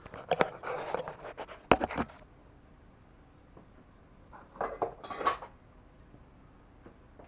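Small metal tools clinking and scraping in two short bursts, one in the first two seconds and another around five seconds in: hand tools at work on a bike engine's magneto wiring.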